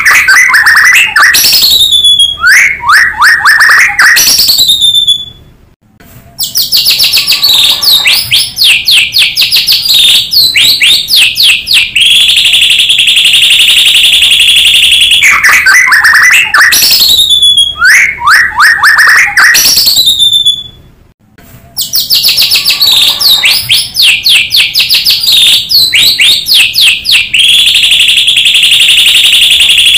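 White-rumped shama (murai batu) singing loudly, its song filled with canary phrases: long steady high trills alternating with runs of rapid down-slurred whistles. The same sequence of phrases comes round about every fifteen seconds, with a brief break between.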